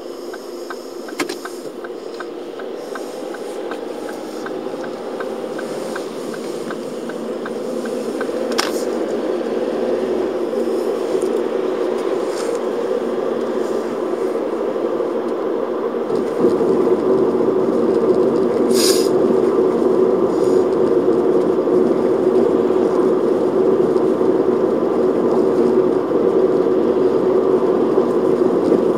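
Road and engine noise inside a moving car's cabin, growing louder as the car picks up speed. A quick regular ticking, about three a second, runs through the first several seconds: the turn-signal indicator during a turn. About halfway through the noise steps up and turns rougher as the tyres run onto brick paving.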